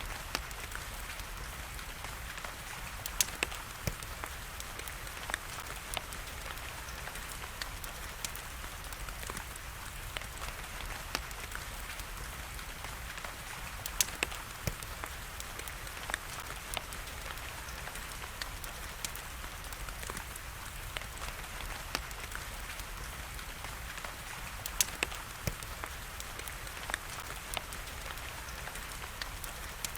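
Wood fire crackling in a fireplace, with scattered sharp pops, a few louder than the rest, over a steady hiss of rain.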